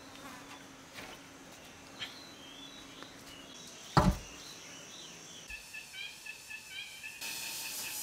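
Outdoor ambience of chirping birds and a buzzing insect, broken about four seconds in by one heavy thump as a wooden log post is dropped upright into its hole. A quick, evenly repeated chirping sets in past the halfway point.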